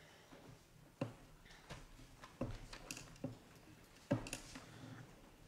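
Faint, scattered knocks and clicks, about five in all, the sharpest about a second in and near the end: footsteps and handling as a voter puts ballots into a ballot box.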